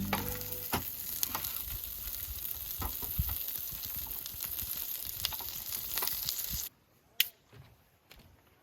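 Food sizzling and frying in a pan, with scattered small pops. It cuts off abruptly near the end, leaving near quiet with one sharp click.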